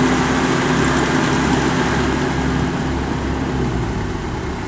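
A combine harvester's diesel engine running steadily at idle, a low even hum that eases off slightly near the end.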